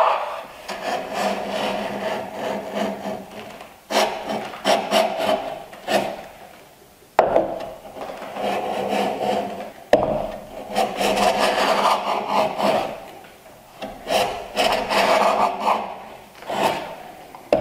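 A heavy 5.5-pound miter plane is pushed in about six strokes across the end grain of a board held in a miter jack, shaving a 45-degree bevel. Each stroke is a rasping shave a second or two long, and two of them start with a sharp knock.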